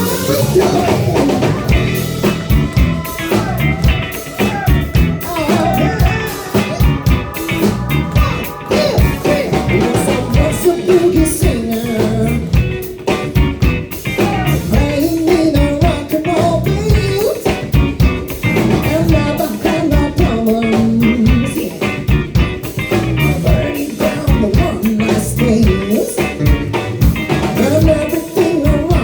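Live band playing an up-tempo song with drum kit and guitar.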